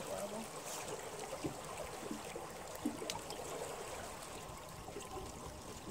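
Water trickling and lapping close by, with a few faint clicks and knocks scattered through.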